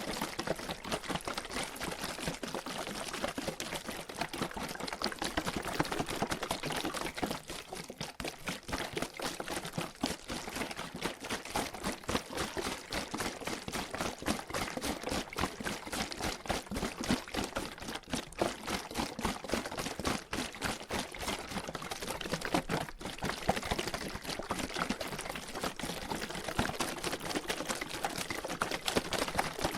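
Water sloshing and splashing inside a plastic water bottle being shaken continuously, a fast irregular churning of many quick splashes.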